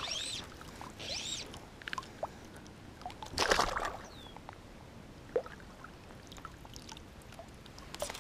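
Fly line being stripped in by hand through the rod guides while playing a hooked cutthroat trout: short swishing pulls, with a louder half-second burst of noise about three and a half seconds in.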